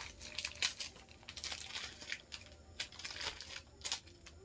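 Clear plastic packaging crinkling as hands open and handle it, in irregular crackles with a few sharper snaps.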